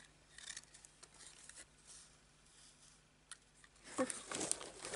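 Faint rustling and light clicks of ribbons and ribbon spools being handled, getting louder about four seconds in as hands rummage through a box of ribbons.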